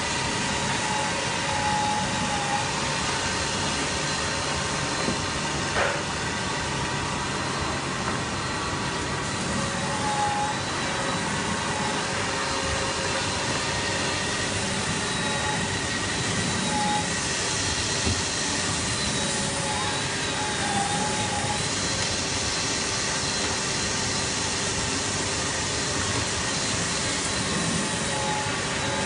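Hand-pressure long-belt sander running steadily, its sanding belt grinding over a curved wooden chair part pressed against it by the sliding pressure pad. Brief squeaks now and then, and a single click about six seconds in.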